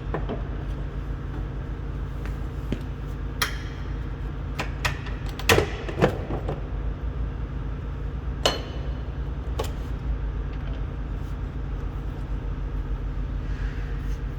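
Plastic trim clips of a semi-truck's inner door panel snapping loose as the panel is pried off: a handful of sharp snaps and clicks, the loudest two about five and a half and six seconds in, over a steady low hum.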